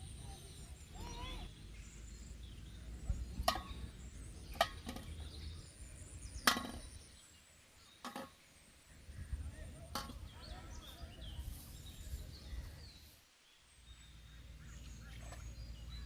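Outdoor rural ambience with a low steady rumble, about five sharp knocks or clicks spread through it (the loudest in the middle), and faint bird chirps.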